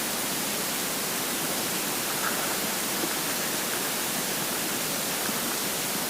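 Steady hiss of recording noise, with a couple of faint, brief stomach gurgles about two and three seconds in.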